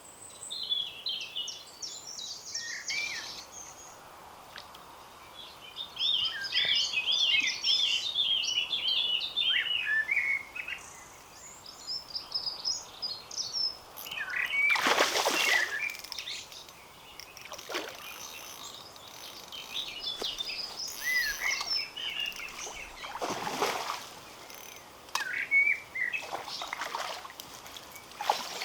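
Small songbirds singing and chirping in quick repeated high phrases. About halfway through, and again later, there are brief louder rushing noises.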